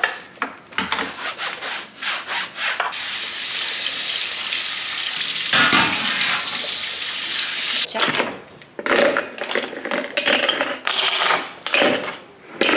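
Rubbing and knocking as a metal mesh range-hood filter is handled and scrubbed in a sink, then tap water running steadily onto a baking tray for about five seconds. After that come irregular clattering knocks as metal gas-burner caps are handled in a plastic bowl.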